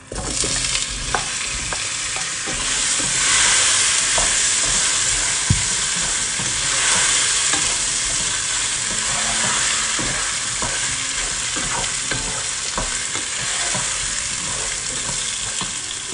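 Wet, freshly washed pieces of taro root (arvi) hitting hot oil in a pot and sizzling loudly at once; the sizzle swells a few seconds in and eases off toward the end. A wooden spoon stirs them, with light knocks against the pot.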